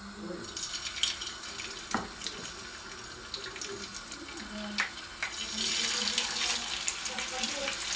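Pieces of raw nutria fillet sizzling as they are laid into hot rendered fat in a frying pan, with a few light clicks as the meat goes in. The sizzle grows louder about five and a half seconds in as another piece is added.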